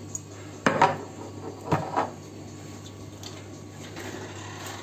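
A few short knocks as a sesame oil bottle is handled and put down on the counter, about a second in and again near two seconds in, then faint rubbing and squishing of hands kneading crumbly rice-cake dough.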